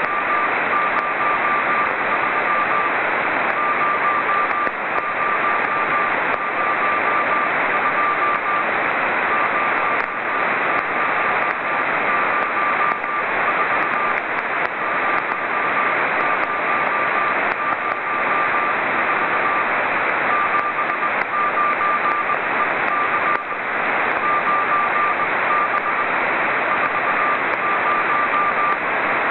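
The CO-66 (SEEDS II) amateur satellite's CW beacon on 437.485 MHz, received on a Yaesu FT-817: a single-pitched Morse code tone keyed on and off in dots and dashes, with short pauses, over loud, steady receiver hiss.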